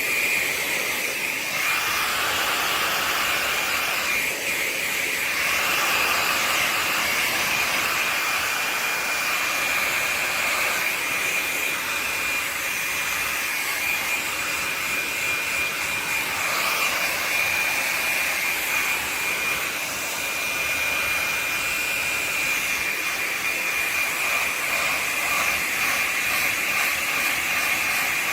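Handheld hair dryer running steadily, a rush of air with a thin high whine, blowing on a wet kitten to dry her fur. The rushing part shifts in tone now and then while the whine holds.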